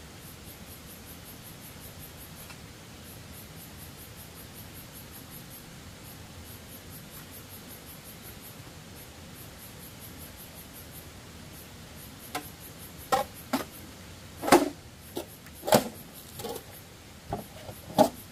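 Faint high pulsing chirr of insects, then, in the last third, about nine sharp, irregular knocks of a machete and bamboo poles being worked, one much louder than the rest.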